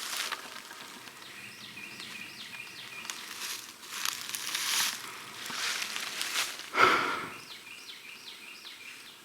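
Footsteps rustling through brush and weeds on a swamp trail, with a sharper thump or knock about seven seconds in. Runs of short high chirps, about five a second, repeat in the background.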